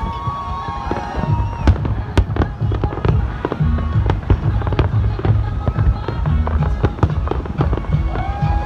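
A big fireworks display going off: many sharp bangs and crackling bursts in quick succession over a continuous low rumble of explosions.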